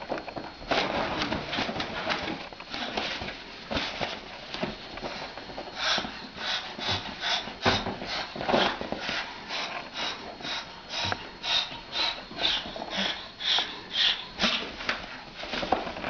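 Moluccan cockatoo hissing in short, rhythmic bursts, about two a second, as a threat call at a cat.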